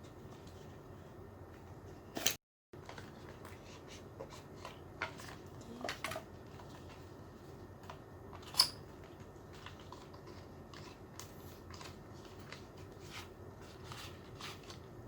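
Small cardboard-and-plastic packaging of a vape pod kit being opened and handled by hand: scattered light clicks and rustles, with one sharper click about eight and a half seconds in. The sound drops out completely for a moment at about two and a half seconds.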